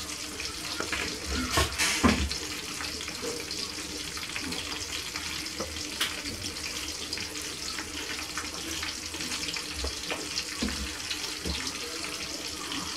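Spatula stirring rice salad in a stainless steel mixing bowl: a steady rustling scrape with a few light knocks against the bowl, the loudest about two seconds in.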